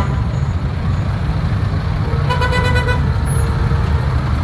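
Heavy vehicle's engine running with a steady low rumble, and a horn sounded once for under a second about two seconds in.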